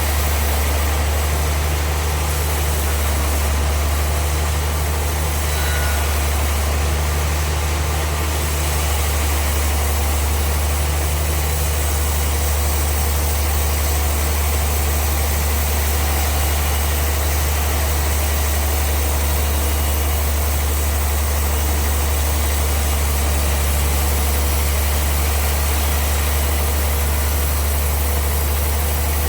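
Bandsaw sawmill machinery running steadily: a constant low engine-like hum with an even mechanical hiss, no breaks or changes.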